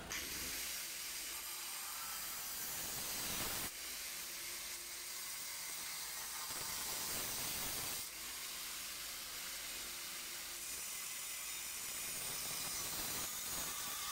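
Electric angle grinder with a thin cutting disc cutting through a steel wheel-arch panel: a steady, high, hiss-like rasp that dips briefly twice.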